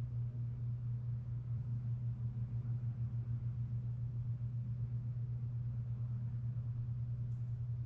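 A steady low hum that swells and fades slightly, about twice a second.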